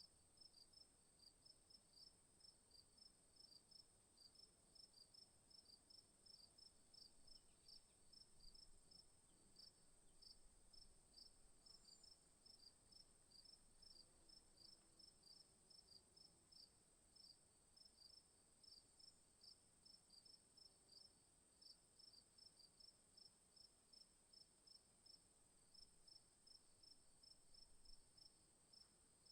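Faint, steady insect chirping: short high chirps repeating a few times a second over a continuous high-pitched drone.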